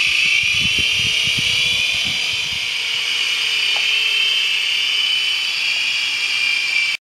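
Small electric motors of a toy remote-control coaxial helicopter whining steadily at a high pitch as it lifts off and flies, with a few low thumps in the first couple of seconds. The sound cuts off abruptly near the end.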